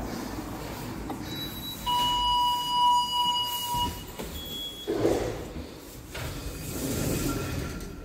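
An electronic beep from the lift holds one steady pitch for about two seconds. Afterwards the lift's sliding doors are heard moving.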